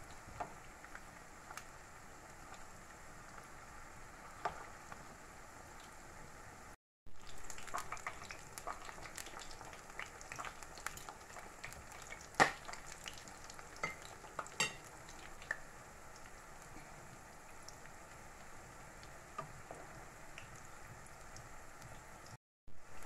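Rolled corn-tortilla taquitos (flautas) shallow-frying in hot oil in a skillet: a steady crackling sizzle with scattered sharp pops and clicks. The sound cuts out for a moment twice.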